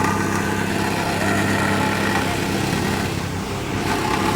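Engine of asphalt paving equipment running steadily at an even pitch.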